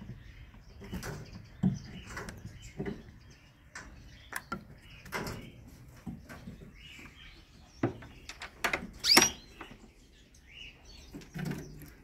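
Scattered knocks and clatter of a wooden aviary cage door being handled and shut, with short canary chirps in between. The loudest chirp comes about nine seconds in.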